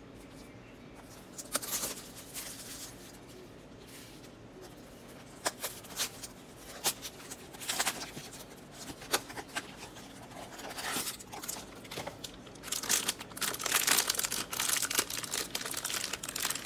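A cardboard blind box being opened by hand, with scattered taps and rustles. Then the shiny foil wrapper inside crinkles and tears open, loudest and most continuous over the last few seconds.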